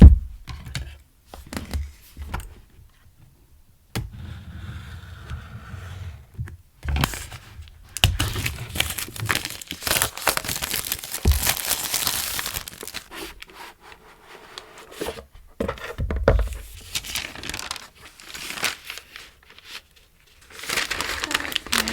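Packaging being unwrapped by hand around a new journal: irregular crinkling and rustling with some tearing, busiest about eight to thirteen seconds in, with a few soft knocks from handling.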